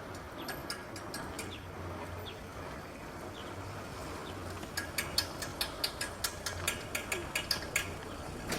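Quiet street background with a steady low hum. About five seconds in comes a quick run of sharp clicks, about five a second, lasting some three seconds.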